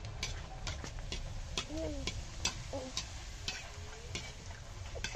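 Puchka deep-frying in very hot oil in a wok, sizzling with irregular crackles, while a perforated metal skimmer stirs and flips them in the pan as they puff up.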